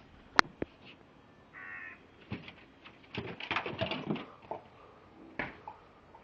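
Short, harsh, caw-like animal calls, most of them bunched together in the middle. A sharp click comes just before them.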